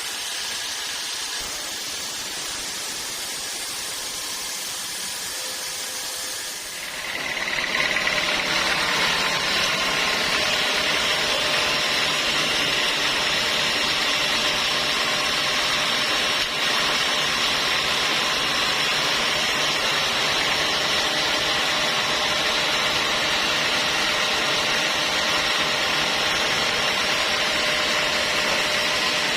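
Sawmill saw running steadily, stepping up to a louder, fuller sound about seven seconds in and holding steady after that.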